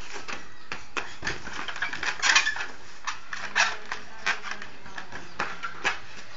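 Irregular light taps and clicks over a steady background hiss, from long rubber modelling balloons being batted by hand.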